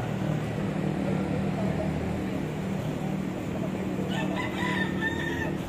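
A rooster crows once about four seconds in, the call lasting about a second and a half, over a steady low engine hum.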